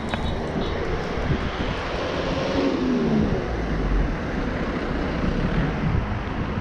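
Steady outdoor street noise with a motor vehicle engine; the engine's pitch falls about two and a half to three seconds in.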